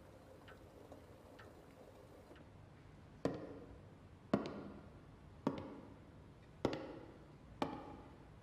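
Slow footsteps of hard-soled shoes on a wooden floor in an echoing hallway, about one step a second, starting about three seconds in; faint light ticking before them.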